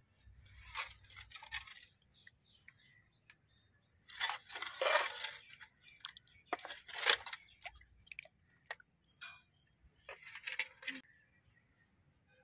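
Metal ladle stirring and scooping thick fish curry in a metal pot, scraping against the pot and sloshing in about four short bursts, as curry and fish are ladled out onto rice.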